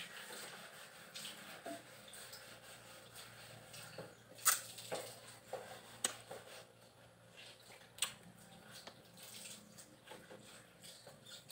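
Faint, wet eating sounds of lansones fruit being peeled by hand and chewed: soft squishing and sharp mouth clicks now and then, the loudest about four and a half seconds in and another at about eight seconds.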